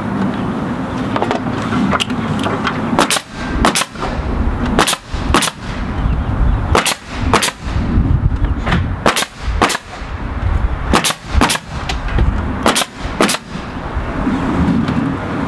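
Pneumatic coil siding nail gun firing nails into rough-sawn trim boards: a series of sharp shots, beginning about three seconds in and coming about every half second to a second, often in quick pairs.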